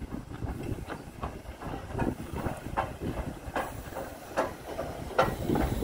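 BR Ivatt Class 2MT 2-6-2 tank locomotive No. 41298 rolling past at close range, its wheels and motion giving irregular clanks and clicks over the rail joints above a low rumble, with steam hissing, louder near the end.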